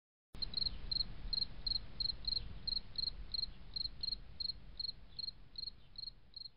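Cricket chirping in an even rhythm of about three chirps a second, over a faint low rumble, slowly fading out.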